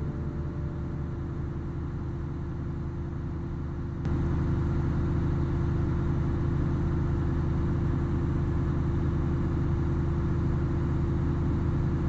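Concrete pump truck's diesel engine running steadily at a low hum, growing louder and fuller about four seconds in.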